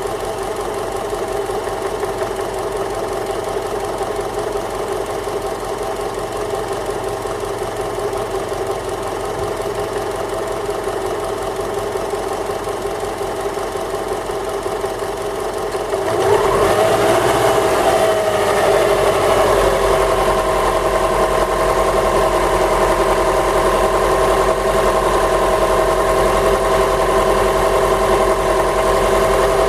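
Subaru EJ204 2.0-litre flat-four idling warm with a knock, the knock that the owner puts down to running on Mobil 1 x1 5W-30 oil. About halfway through the sound gets louder, with a brief rise in pitch that then settles back to a steady idle.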